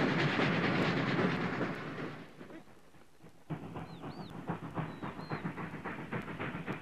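Goods wagons rolling past close by with a dense rattle of wheels on rail joints, fading away after about two seconds. Then, after a sudden cut, an oil-fired steam locomotive hauling a goods train, its exhaust beating in a quick, even rhythm, with two short high chirps.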